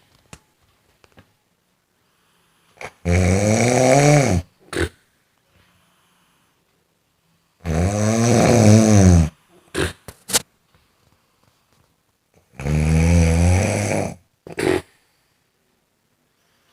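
A person snoring: three long snores about every five seconds, each followed by a short breath, with quiet in between.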